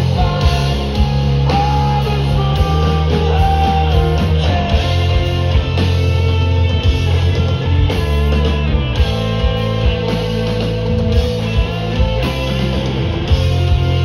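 Live rock band playing loudly: electric guitar over bass and drums, with cymbals hitting on a steady beat.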